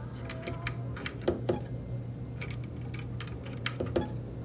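Light, irregular clicks and taps of a small wrench and plastic and metal prop-adapter parts being handled and fitted onto a drone motor, over a steady low hum.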